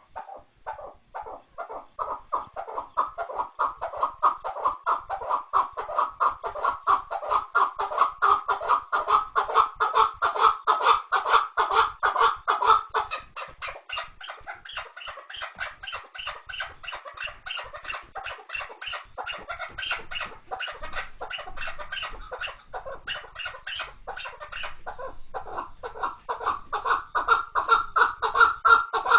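Chukar partridge calling: a long, unbroken run of rapid, repeated clucking notes, the chukar's chuck-chuck call. It is louder in the first half, eases off in the middle, and swells again near the end.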